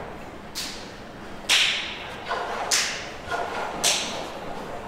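Train wheels clacking over rail joints and pointwork as an Underground train approaches the platform: a row of sharp clacks about a second apart, each ringing briefly.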